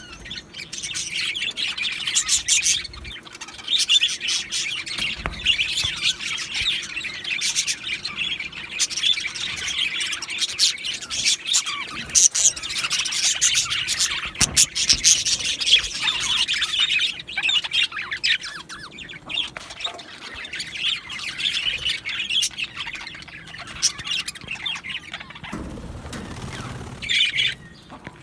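Budgerigars chirping and chattering in a rapid, continuous stream of high calls, with a short lower-pitched noise near the end.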